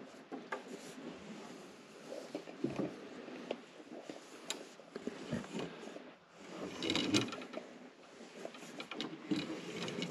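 Wooden purlin and roof-truss lumber being handled: irregular light knocks, taps and scrapes of wood against wood, with a busier clatter about seven seconds in.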